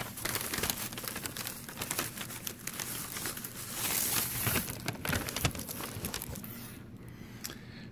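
Paper crinkling and rustling as bakery tissue paper and a paper bag around donuts are handled, a dense crackle that is busiest in the middle and thins out near the end.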